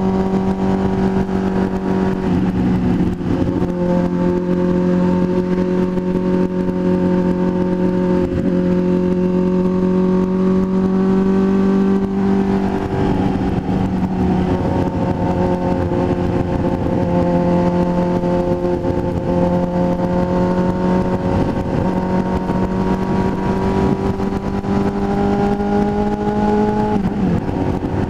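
Motorcycle engine running steadily while cruising on a highway, its note holding constant with a few slight shifts in pitch, the last near the end.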